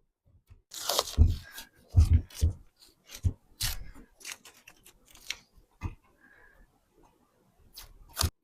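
Tape being peeled off and handled: an irregular run of crackling rips and soft knocks, ending with one last sharp crackle near the end.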